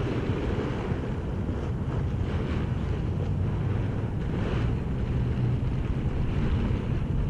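Steady wind noise on the microphone, with faint rustling as the paraglider's wing fabric and lines are handled.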